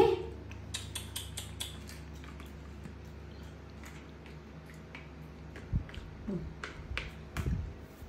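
A quick run of light clicks about a second in, then a few dull thumps and taps near the end, over a steady low hum.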